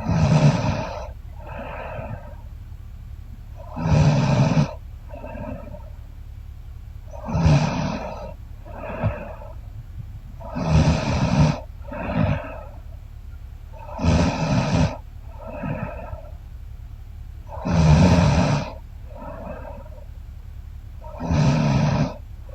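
A woman snoring loudly in her sleep, seven rasping snores about every three and a half seconds, each followed by a softer breath.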